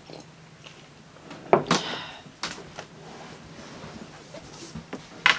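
A few sharp knocks and clatters, the loudest about a second and a half in: a ceramic mug being set down on a wooden table and things handled on it.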